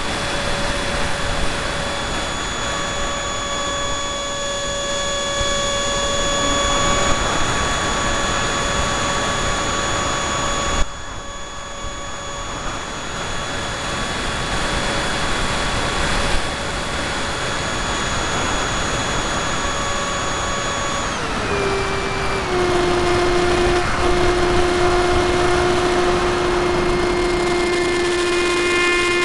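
Banana Hobby Raptor RC airplane's motor and propeller whining steadily over a rush of air, picked up by a small camera on the plane's nose. The whine steps down in pitch twice a little past twenty seconds in as the throttle is eased back.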